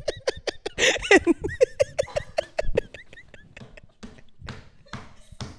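People laughing hard in rapid short pulses, about five a second, dying down to faint scattered breaths after about three seconds.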